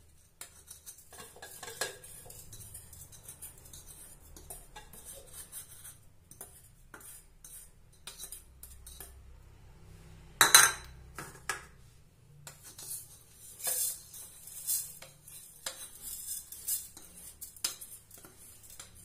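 Metal teaspoon scraping and tapping against a ceramic bowl and a blender beaker while coffee powder is spooned across. There are scattered clinks, one sharp loud one about ten and a half seconds in, and a run of taps near the end.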